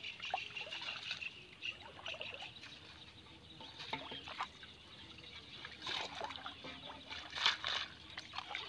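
Water trickling and splashing as a wet mesh fish trap is lifted and handled over shallow water: irregular small splashes and dribbles, with a sharper splash about six seconds in and another near the end.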